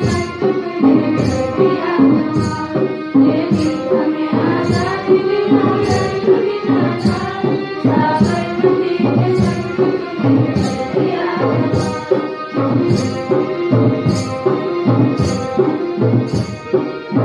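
A group of schoolgirls singing together into a microphone, accompanied by keyboard and harmonium, with a steady percussion beat.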